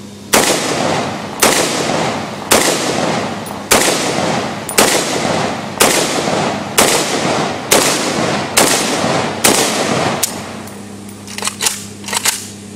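An I.O. Inc. STG2000 AK-pattern pistol in 7.62x39 firing ten shots, about one a second, each followed by a long echo. A few lighter clicks come near the end.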